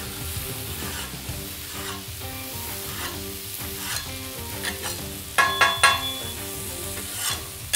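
Meat sizzling on the hot flat cooking surface of a wood-fired grill, with metal spatulas scraping and tapping on it. A quick run of sharp, ringing metal clinks comes about five and a half seconds in.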